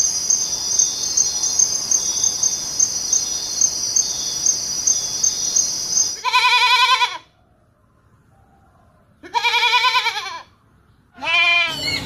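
A steady, high, pulsing insect trill for about six seconds. It stops abruptly, and two quavering goat bleats of about a second each follow, then a shorter call just before the end.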